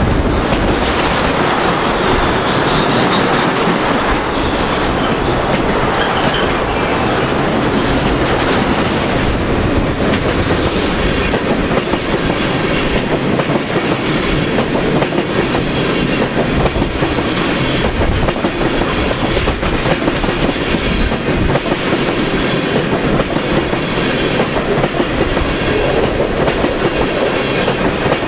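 CN freight train's cars rolling past, a steady loud rumble and clatter of wheels on the rails.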